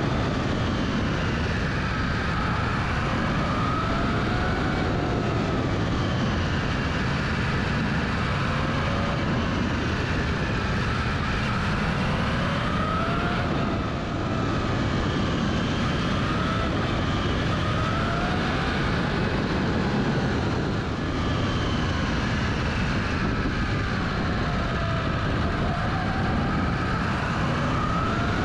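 Yamaha YZF-R1M's inline-four engine running under way, its pitch rising and falling every few seconds with throttle and gear changes, over steady wind and road noise picked up on the bike itself.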